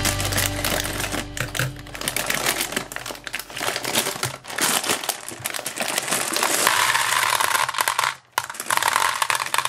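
A plastic bag crinkling as it is snipped open with scissors and handled, then, about two-thirds of the way in, a stream of small gumballs pouring out and clattering into a plastic toy bathtub, with a brief break partway through.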